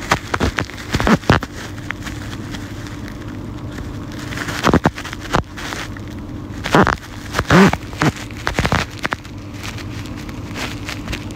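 Handling noise on a phone's microphone held close: irregular taps, clicks and crackles over a steady hum, with a few short murmured sounds.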